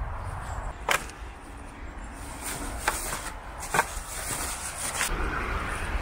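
Steady low rumble of distant motorway traffic, with a handful of short sharp clicks or taps at irregular intervals.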